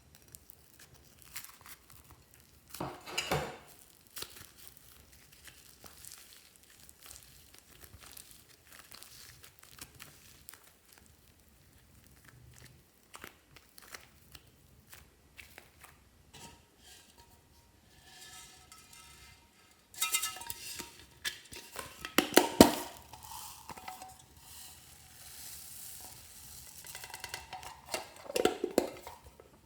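Glossy slime being mixed and squished by hand: soft sticky clicks and crackles, with louder squelching stretches about three seconds in, around twenty seconds in, and near the end.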